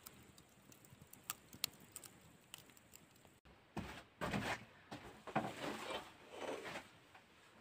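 Scattered light clicks and knocks, then after a cut a few seconds of irregular crunching and rustling, like footsteps or something being handled.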